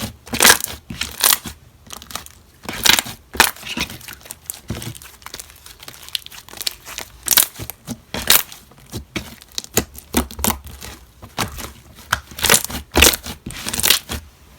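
Slime being squished, pressed and stretched by hand, giving irregular crackles and pops.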